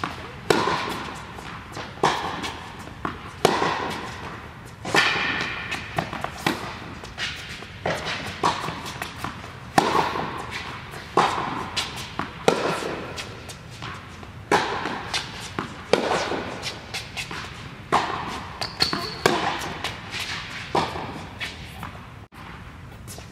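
Tennis rally on an indoor hard court: the ball struck by rackets and bouncing off the court in a string of sharp knocks, about one a second. Each hit echoes briefly in the large hall.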